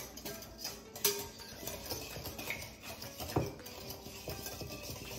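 A utensil stirring liquid cake ingredients (eggs, oil, milk and vanilla) in a mixing bowl, with irregular clinks and knocks against the bowl and two sharper knocks.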